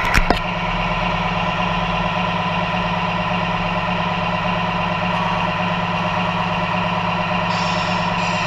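Radio-controlled scale model trucks' sound units playing a steady diesel truck engine idle, an even hum. Two sharp clicks come right at the start, and a hiss comes in near the end.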